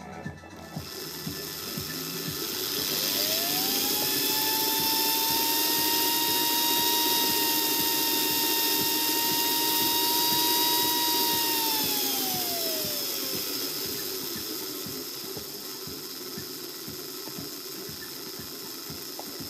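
Märklin H0 model locomotive's electric motor and gearing running on a rolling-road test stand, freshly given a complete service. A whine rises in pitch as it speeds up about three seconds in, holds steady, then falls away as it slows down again, over a continuous light clatter of clicks from the wheels and rollers.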